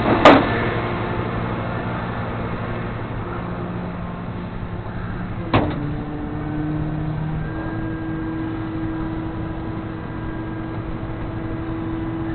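Vehicle engine idling steadily, with a sharp knock just after the start and another about halfway through, after which a steady hum joins in.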